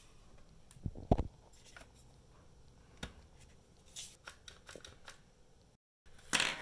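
Plastic top cover of a DJI Inspire 2 drone being handled and pressed into place on the body: a few sharp clicks and knocks, the loudest a double knock about a second in, with lighter clicking and a scraping rustle near the end.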